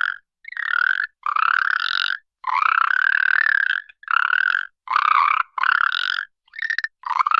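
An animal sound effect: a string of rasping, croak-like calls of uneven length, each separated by a short silence.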